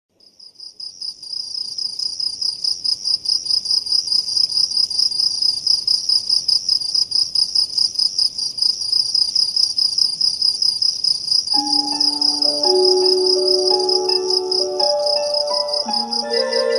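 Crickets chirping in a steady, rapid rhythm of high-pitched pulses, fading in at the start. About two-thirds of the way in, soft tuned musical notes join underneath.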